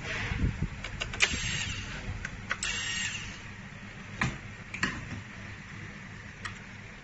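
Scattered plastic clicks and knocks with short scraping rustles as the plastic chassis and parts of a robot vacuum are handled during disassembly. The scraping comes in the first few seconds, and a few sparser clicks follow.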